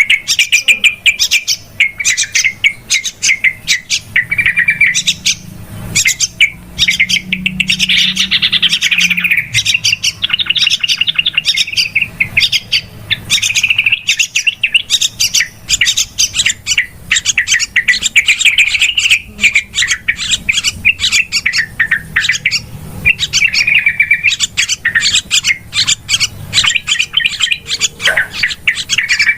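Yellow-vented bulbuls (trucukan) chattering noisily and without a break: a dense run of quick, sharp calls with short bubbling song phrases now and then. This is a lure call, used to draw the birds in for trapping.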